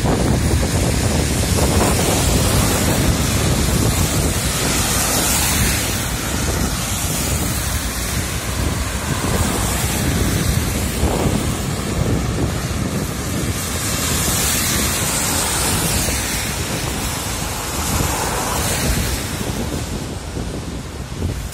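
Wind buffeting the microphone in a loud, steady rumble, over the hiss of car tyres on a wet road.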